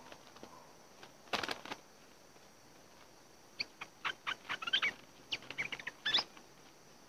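Streak-eared bulbuls at a trap cage: a short flurry of wingbeats about a second in, then a run of quick, sharp chattering chirps through the second half.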